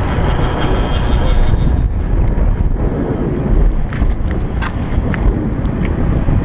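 Steady low rumble and buffeting on a lineman's body-worn camera high on a wooden pole, with a handful of sharp clicks and knocks from the climbing harness gear about four to six seconds in.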